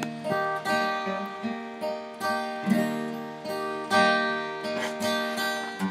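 Acoustic guitar played flat on the lap with a steel slide bar, a slow run of plucked notes and chords that ring on after each pick.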